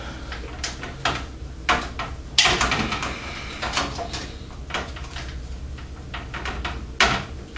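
A motherboard being fitted into a metal PC case and lined up against the I/O shield and standoffs: a series of irregular knocks, clicks and scrapes, the loudest about two and a half seconds in.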